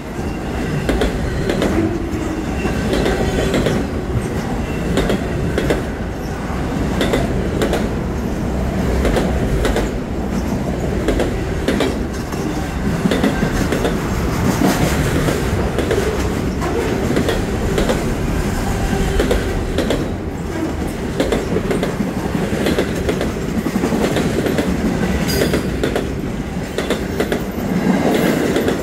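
Freight train cars (autoracks and loaded flatcars) rolling past close by: a steady rumble of steel wheels on rail with frequent irregular clacks.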